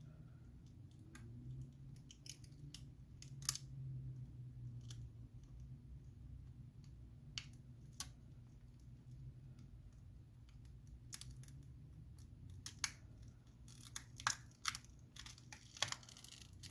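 Scattered light clicks, taps and scraping of small tools and fingers working an iPhone 7's battery free of its adhesive, with a denser run of ticks and scrapes near the end. A low steady hum sits underneath.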